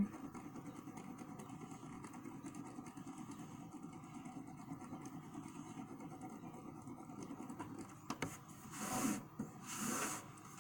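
Colored pencil shading on sketchbook paper: a faint, quick back-and-forth scratching at several strokes a second. Near the end, two louder scrapes and rustles as the spiral sketchbook is slid and turned on the table.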